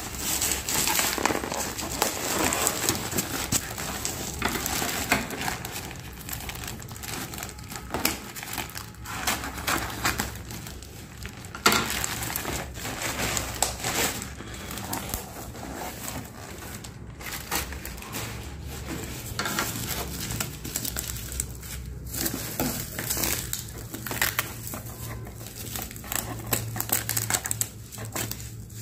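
Bubble wrap and plastic packaging crinkling and crackling as hands handle it and unwrap a digital bathroom scale, in irregular rustles with a sharper crack about twelve seconds in.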